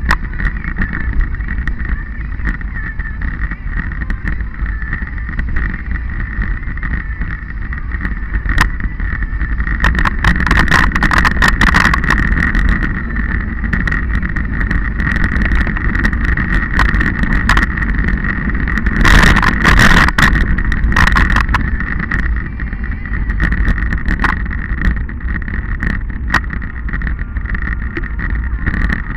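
Wind buffeting the microphone over the rumble and rattle of a bike riding over a rough, stony dirt track, with frequent sharp knocks and a steady high whine. It gets louder twice, about a third of the way in and again about two-thirds in.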